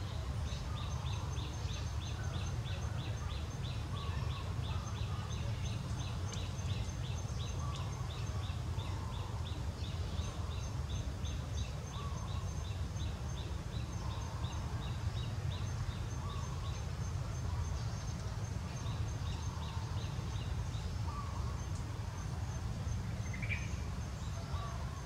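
Outdoor ambience: a steady low rumble with a rapid, even chirping of small animals, about four to five chirps a second, which stops a little past halfway, and faint high ticking that goes on.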